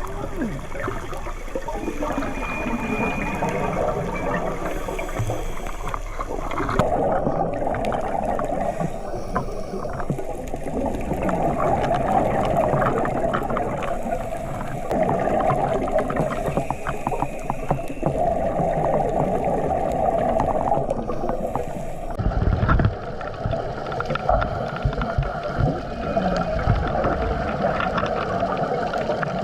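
Gurgling, bubbling water noise, coming in bursts every few seconds, with a brief low rumble about two-thirds of the way through.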